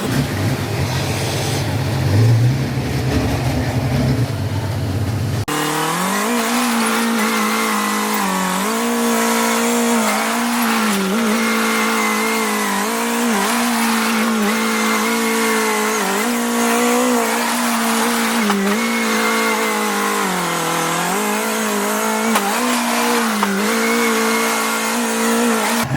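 An engine runs continuously, its pitch dipping and recovering every few seconds as if under changing load. For the first five seconds or so a deeper rumble is heard instead, and it changes abruptly to the higher engine tone.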